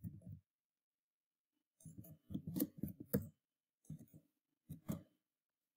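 Computer keyboard typing: faint keystrokes in a few short runs with pauses between.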